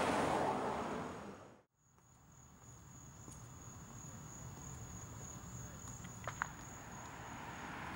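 Outdoor ambience: passing traffic noise fades away in the first second and a half and cuts off abruptly, then crickets trill steadily at a high, even pitch over a low rumble, with a brief double chirp about six seconds in.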